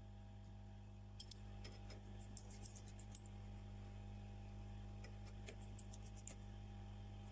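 Faint, sharp clicks and ticks of small repair tools handling an opened iPhone 11, in two short flurries, over a steady low electrical hum.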